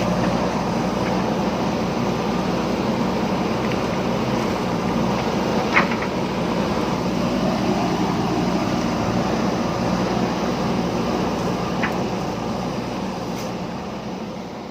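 JCB backhoe loader's diesel engine running steadily at work, with two sharp knocks, one about six seconds in and one near twelve seconds. The sound fades out at the very end.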